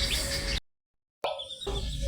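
Baby chicks peeping: many short, high, falling chirps over a low background hum. About a third of the way in the sound drops to dead silence for about half a second, then the chirping comes back.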